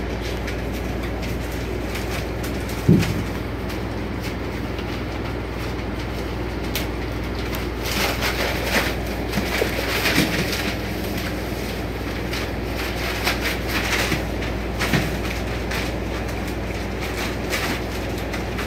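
Newspaper bedding crinkling and rustling under puppies' paws in short scattered scrapes from about eight seconds in, over a steady low hum, with a single thump about three seconds in.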